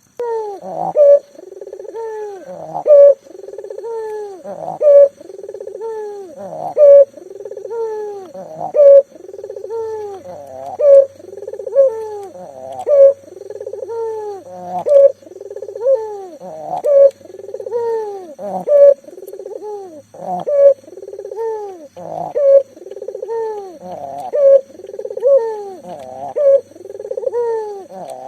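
Local puter dove (a collared dove kept as a cage bird) in full song, cooing without pause. The coos come about once a second, with a louder accented coo about every two seconds.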